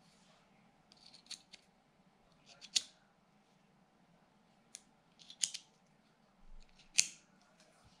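Titanium tactical pen's mechanism being worked by hand: a series of sharp metal-on-metal clicks and snaps at irregular intervals, the loudest about three seconds in and again near the end.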